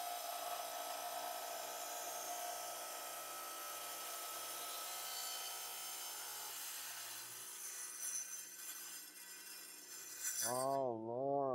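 Small diamond-blade saw grinding steadily through a rock, a hissing cut with a faint motor whine, fading down in the last few seconds. A voice sounds briefly near the end.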